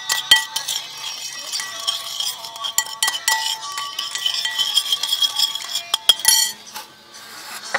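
Metal kitchen utensils clinking and rattling against pots and bowls in quick, irregular strikes, with music playing alongside. The sound cuts off suddenly at the end.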